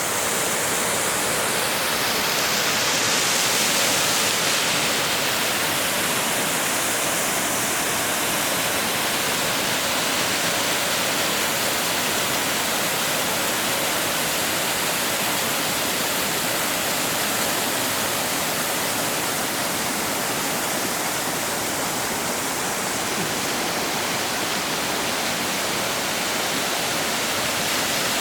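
Steady rush of a waterfall and river, a hissing sound with little low rumble.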